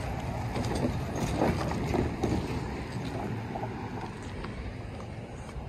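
Wind rumbling on the microphone of a handheld camera carried across a railroad crossing, with irregular footsteps on gravel and pavement in the first half.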